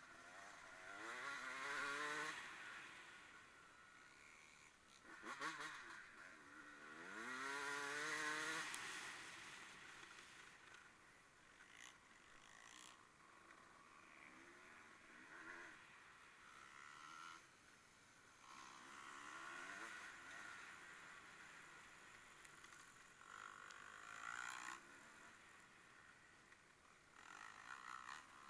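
Faint engines of racing vehicles going by. Two louder passes with the engine pitch rising and falling come in the first nine seconds, and fainter, shorter ones follow.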